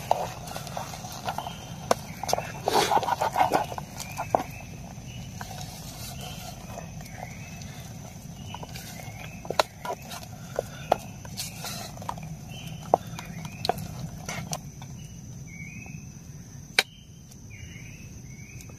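A wooden spoon stirring and scraping thick rice in an aluminium camping pot, with irregular clicks and taps against the pot that thin out near the end. Insects keep up a steady high-pitched drone and short repeated chirps behind it.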